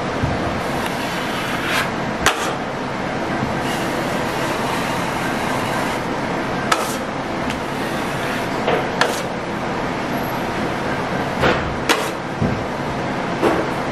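Metal taping knife spreading joint compound over a drywall corner bead: a handful of irregular sharp clacks and scrapes of the knife, over a steady background hum.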